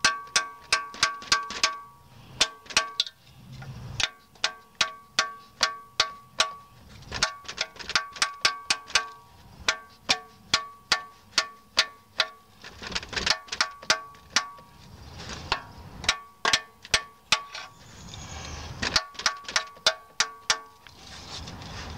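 A ball-peen hammer strikes a steel gasket separator tool in quick runs of about four blows a second, broken by short pauses. Each blow is a sharp metallic clink with a brief ringing note. The wedge is being driven between the oil pan and the engine block to cut through the RTV sealant.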